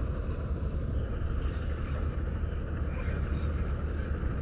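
Steady low rumble of wind buffeting the microphone, with no clear events on top.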